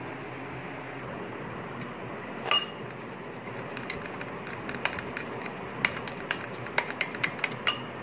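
A utensil clinking against a glass mixing bowl of beaten egg: one loud ringing clink about two and a half seconds in, then a run of quick, irregular taps as the egg is stirred. A steady hiss runs underneath.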